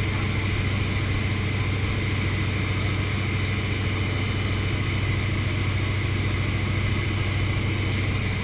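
Propeller aircraft's piston engine running at a steady cruise, a constant low drone heard from inside the cabin.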